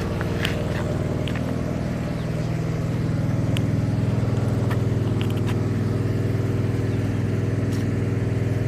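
An engine running steadily, a little louder from about three seconds in, with a few faint clicks over it.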